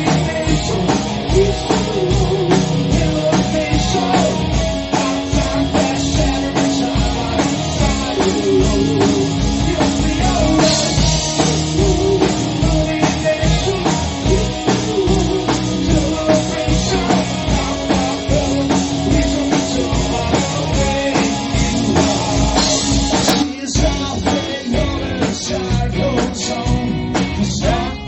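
Rock band playing: a drum kit keeping a steady beat under electric guitars, with a short break about three-quarters of the way through before the band comes back in.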